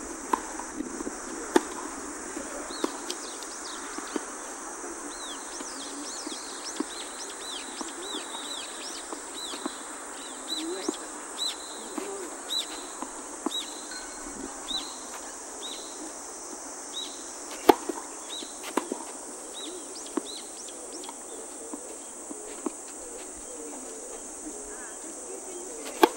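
Tennis balls struck by rackets, sharp pops at irregular intervals with the loudest about two-thirds through. Under them runs a steady high insect drone, and a bird repeats a short chirp over and over through the middle.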